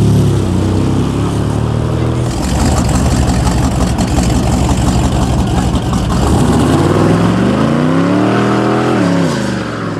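A muscle car's V8 engine running hard at high revs. It revs up over about two seconds near the end, then drops back.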